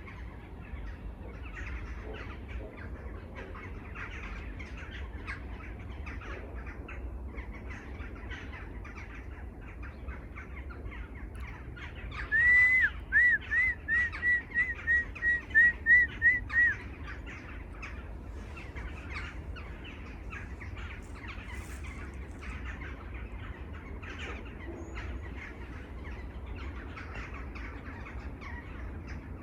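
A chorus of many birds chattering and calling. About twelve seconds in, one bird gives a loud run of about a dozen clear whistled notes that come a little faster toward the end, lasting about four seconds.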